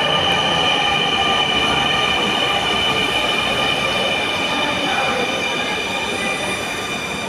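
Metro train at the platform: a steady high whine made of several tones over a rumbling hiss, slowly fading and cutting off near the end.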